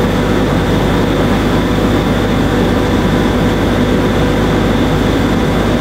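Steady mechanical drone of a machine running, loud and even throughout, with a low hum and a steady mid-pitched tone in it.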